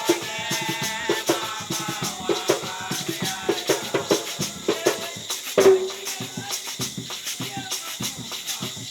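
Music with shakers rattling a quick steady beat over drums, and a voice singing over it for the first few seconds.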